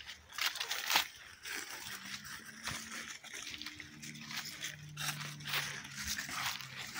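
Footsteps crunching and rustling through dry fallen leaves, a step every second or so. A faint low hum comes in around the middle and fades near the end.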